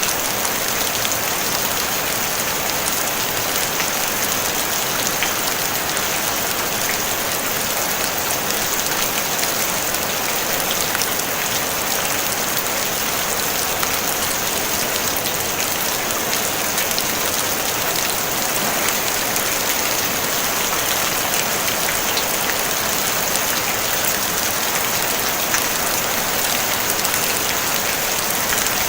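Steady rain falling on a tin roof: an even hiss full of fine drop ticks, with no thunder.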